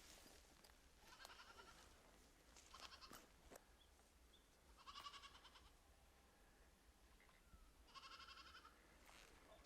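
Faint bleating of feral goats: four short, wavering calls, each about half a second long, spaced a few seconds apart.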